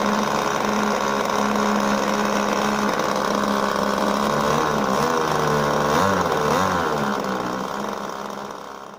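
RC Sbach model airplane's engine running on the ground with its propeller spinning, steady at first, then its pitch rising and falling several times as the throttle is worked. The sound fades out near the end.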